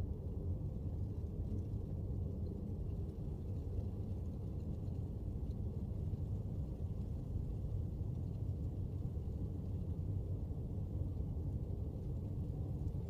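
Steady low rumble of outdoor background noise, with no distinct individual sounds.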